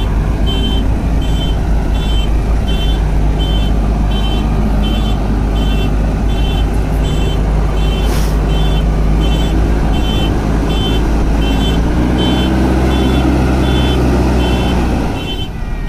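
JCB 3DX backhoe loader's diesel engine running under load, with its high-pitched warning alarm beeping steadily about twice a second. The engine revs up about three-quarters of the way through.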